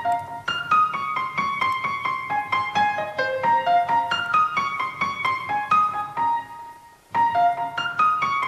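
Background music, a light melody of quick, distinct notes, that breaks off briefly about seven seconds in and then starts again.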